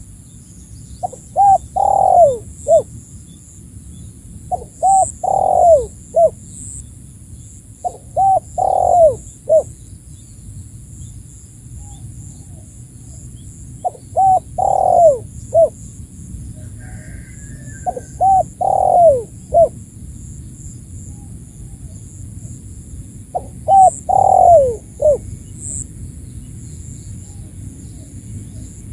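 Spotted dove (tekukur) cooing, its call repeated six times about every four to five seconds. Each phrase is a few short notes, one longer falling coo and a short closing note.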